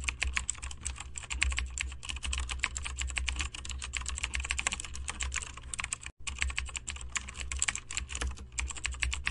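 Computer keyboard typing sound effect: rapid, continuous key clicks, several a second, over a low hum, with a brief break about six seconds in.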